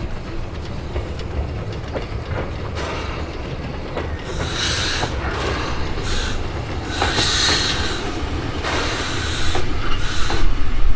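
Pichi Richi Railway's Coffee Pot steam railcar (Steam Motor Coach No.1) moving slowly along the track. From about four seconds in, its exhaust gives a run of separate chuffs of steam and hiss, heard over a low rumble.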